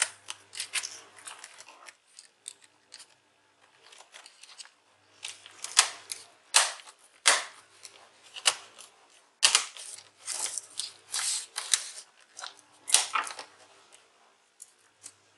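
Laptop keyboard pressed down into its top case: irregular plastic clicks from keys and edge clips, with a few louder snaps as it seats.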